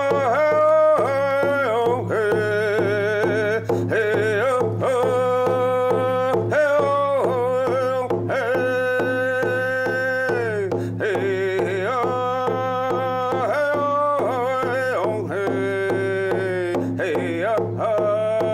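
A man singing a Houma ceremony song in long held phrases that fall in pitch at their ends, keeping time on a rawhide hand drum with a beater.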